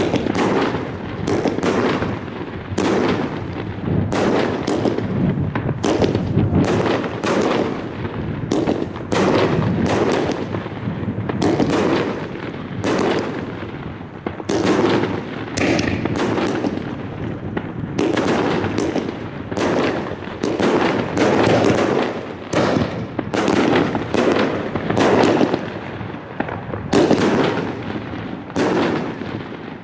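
Showtime Fireworks "Dungeons of Doom" consumer firework cake firing without pause: a rapid run of sharp shots and bursts, two or three a second.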